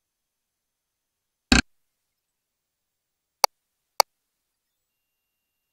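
Three short clicks of the ultrasound machine's control-panel keys being pressed. The first, about a second and a half in, is fuller with a low thud. Two sharper clicks follow about half a second apart near the end, the second as the 4D display shuts off.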